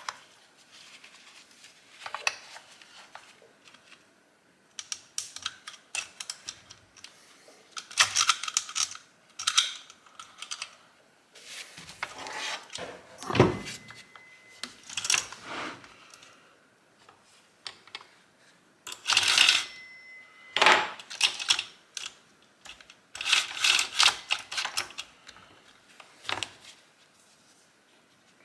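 Irregular small metallic clicks and rattles, with a few louder knocks, from handling a chainsaw's bar and chain as the chain is fitted onto the bar.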